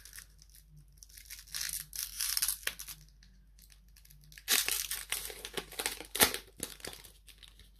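Foil Pokémon booster pack wrapper being torn open and crinkled in a few irregular bursts, the longest starting about four and a half seconds in, with a sharp snap a little after six seconds.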